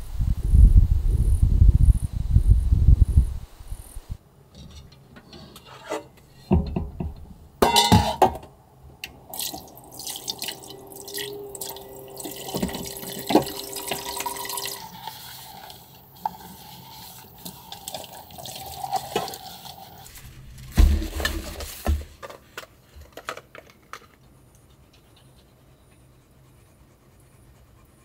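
Strong wind buffeting the microphone for the first few seconds. Then water running from a camper van's sink tap and splashing into a stainless steel basin with a pot in it, with clatters throughout and a thump about 21 seconds in.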